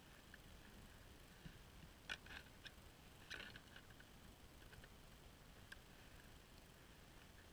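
Near silence, broken by a few faint clicks and taps of a camera with a long telephoto lens being handled, mostly between two and four seconds in.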